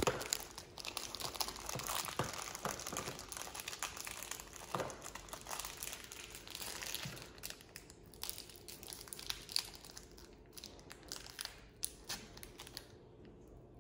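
Plastic snack wrappers crinkling as a child tears open gummy packets and handles them, dense at first, then thinning to scattered crinkles in the second half.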